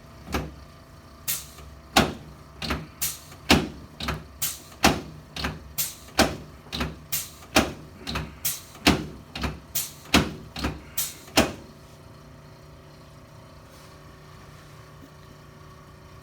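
A run of about twenty sharp clicks and knocks from a chiropractic treatment, with the patient lying on his back on the table. They come at an uneven pace of one or two a second and stop about three quarters of the way through.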